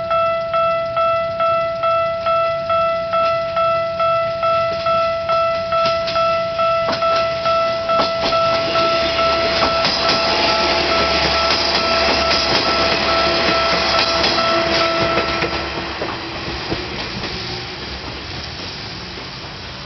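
Japanese level-crossing warning bell ringing about twice a second as a diesel railcar passes through the crossing. From about seven seconds in, its wheels click over the rail joints and its engine rumbles low. The bell stops about fifteen seconds in and the train noise fades as it moves off.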